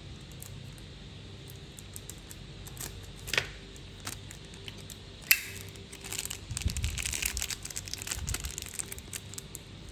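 Handling noise from a Zippo lighter being turned over in the hands: a sharp click about three seconds in, a louder one about five seconds in, then rustling with a few low knocks.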